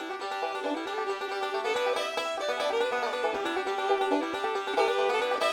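Bluegrass background music led by a quickly plucked banjo.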